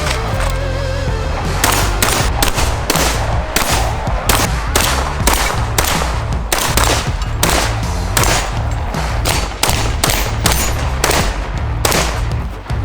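Rapid shotgun fire from box-magazine-fed shotguns, about two to three sharp shots a second, over background music with a heavy bass beat.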